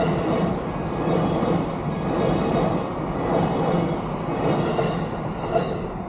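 Train passing: a steady rumble with a rhythmic clatter that swells about once a second.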